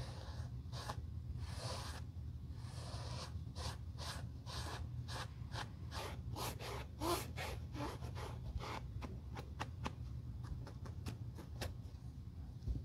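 Small foam sponge rubbed in short, brisk strokes over smooth leather on a slipper, each stroke a soft scuff, about three a second and lighter after about nine seconds in.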